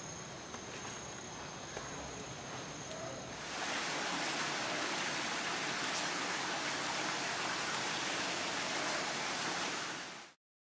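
Forest ambience with a thin, steady, high insect buzz, then about three and a half seconds in, a stream rushing over rocks, a loud even hiss that holds until it fades out sharply near the end.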